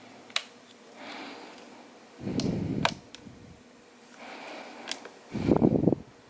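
A laptop memory module being handled and seated in its slot: several sharp plastic-and-metal clicks, with two short dull bumps of handling noise, the second near the end.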